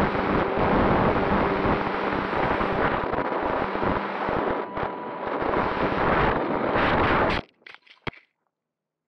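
Onboard microphone of a foamboard RC P-38 Lightning in flight: loud wind rush over the mic with the faint steady whine of its motors. The noise cuts off suddenly about seven seconds in, followed by a few short knocks as the plane comes down in foliage.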